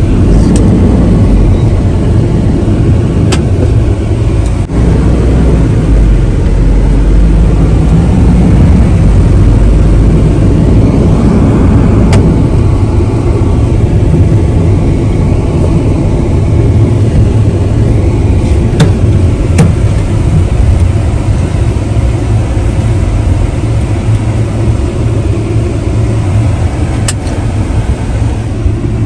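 Steady road and engine rumble from inside a moving vehicle, heavy in the low end, with a few faint sharp clicks scattered through it.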